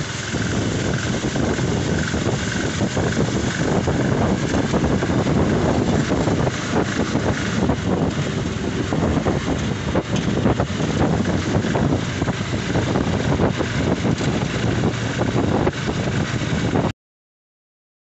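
A vehicle's engine running with wind buffeting the microphone, riding along a road in an open vehicle. The noise is steady and loud, then cuts off suddenly near the end.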